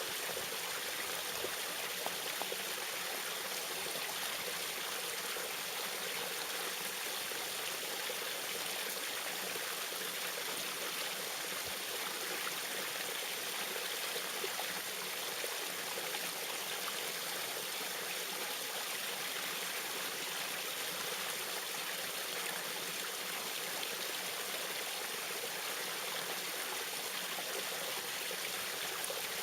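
Small waterfall splashing steadily, an even rush of falling water with a light trickle.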